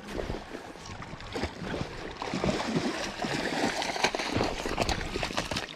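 A hooked sockeye salmon thrashing and splashing in the shallow water at the river's edge as it is pulled ashore. The splashing grows louder about two seconds in.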